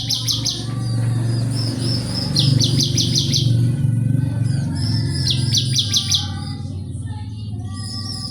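Ciblek (prinia) mother bird with young calling: three short bursts of fast repeated high notes, about half a second to a second each, with softer calls between, over a steady low hum.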